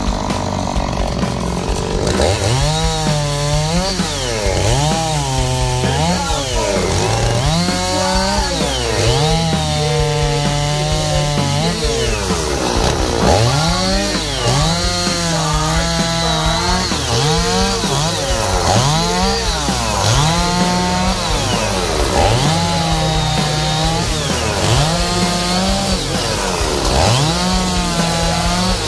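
Oleo-Mac two-stroke chainsaw revved to full throttle and let back down over and over, about every two seconds, as it cuts through the branch stubs and wood of a felled conifer trunk.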